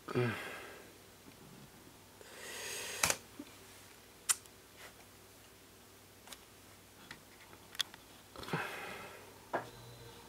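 About half a dozen light, irregularly spaced clicks of a computer mouse and keyboard, with a couple of breaths near the microphone and a brief falling murmur of a voice at the start.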